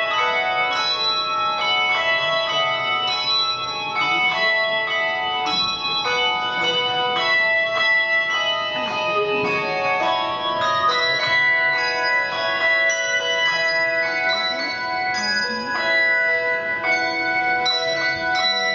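Handbell ensemble ringing a tune: many bell notes struck one after another in a steady rhythm, each ringing on and overlapping into chords.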